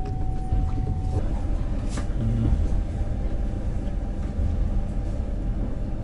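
Steady low rumble of a moving passenger train heard from inside the carriage, with a faint steady tone that stops about a second in.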